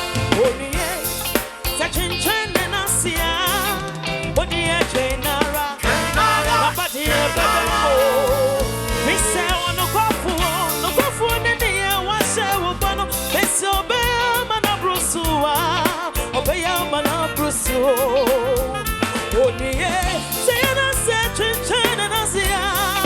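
Gospel song in a bongo flava style: a steady dance beat with bass, and a wavering sung or played melody line over it.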